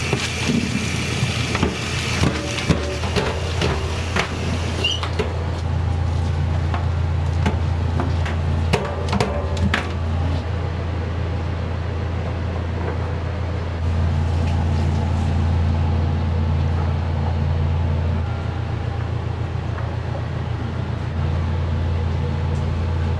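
Restaurant kitchen during pasta cooking: a steady low hum throughout, with scattered metal clanks and knocks of frying pans and utensils, busiest in the first ten seconds and then thinning out.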